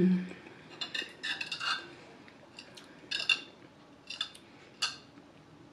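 A metal spoon scraping and clinking against a plate while scooping up soft food: a series of short, ringing clinks, the loudest about three seconds in.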